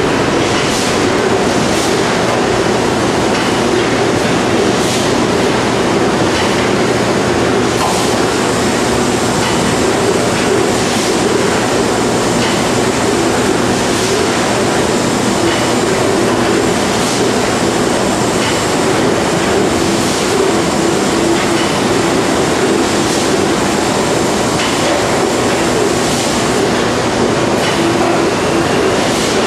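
High-speed bag palletising line running: a loud, steady mechanical din of motors and conveyors, with clunks and clacks every few seconds.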